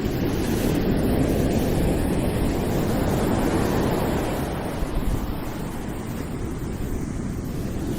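Ocean waves breaking and washing in, a swell of surf building over the first few seconds and easing off, with some wind rumble on the microphone.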